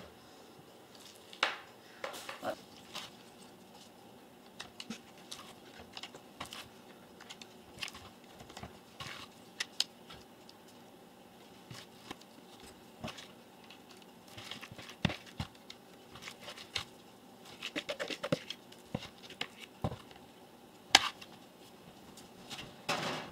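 Scattered light clicks and taps of a spoon against a mixing bowl and baking tray as clumps of sticky dough are dropped onto the tray.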